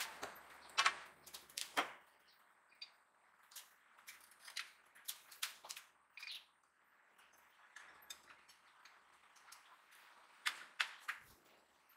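Sharp, irregular clicks and light knocks, bunched in the first couple of seconds and again near the end, with scattered single taps between.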